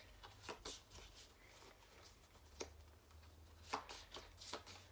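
Faint handling of trading cards being flipped through one at a time, with scattered light clicks and taps of card on card.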